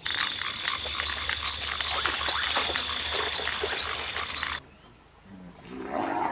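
African wild dogs giving rapid, high-pitched twittering chatter over a steady high whine. The sound cuts off abruptly about four and a half seconds in. Splashing and growling from spotted hyenas fighting in water rises near the end.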